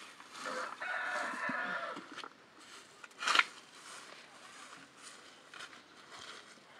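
A rooster crowing once, a call of about a second and a half, followed a little over a second later by a brief, sharp, loud sound.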